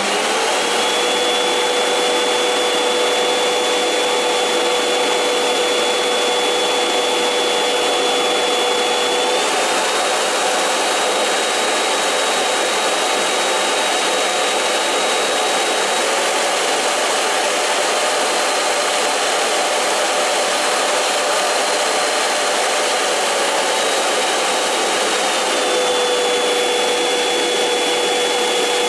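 Thomas AQUA-BOX Compact water-filter vacuum cleaner running, a steady loud rush of air with a motor whine over it. The whine steps up slightly about a third of the way in and drops back near the end.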